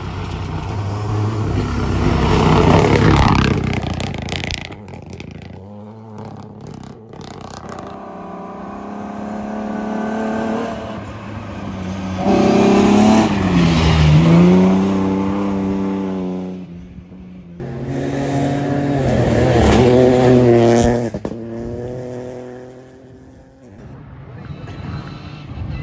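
Rally cars going flat out on a gravel stage, one after another, engines revving hard as each approaches and dropping in pitch as it goes past. The sound changes abruptly between passes.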